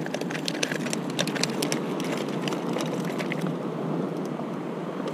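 Steady rushing noise of sea and wind along a rocky shore, with scattered light clicks and taps in the first two and a half seconds.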